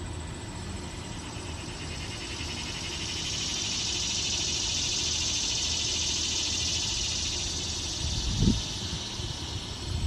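A male annual (dog-day) cicada's high buzzing song swells in a couple of seconds in, holds steady, and fades away near the end. A brief low thump comes about eight seconds in.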